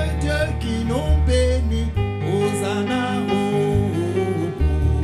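Male gospel singer singing into a microphone, drawn-out sliding vocal runs without clear words, over instrumental accompaniment with deep sustained bass notes.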